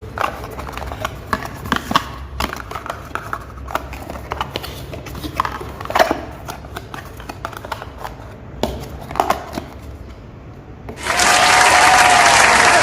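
Scattered light clicks and rustles of things being handled, then about eleven seconds in, loud applause starts abruptly, with wavering tones over it.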